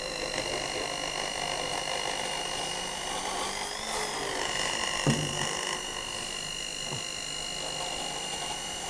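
Bamix stick blender running on low speed in a glass jar of eggs and milk, a steady motor whine, as the blade is raised through the mix to beat in air. The whine briefly rises and falls about four seconds in, and a light knock comes about five seconds in.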